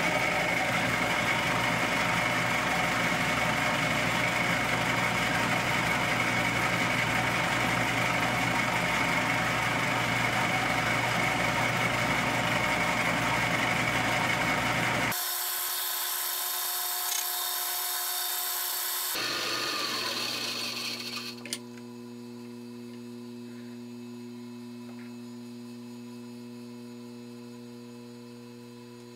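Drill-press mill running a gear cutter through an HDPE gear blank, a steady machine whine with cutting noise. About halfway through the sound changes abruptly, then the motor winds down with a falling tone, leaving a quieter steady hum.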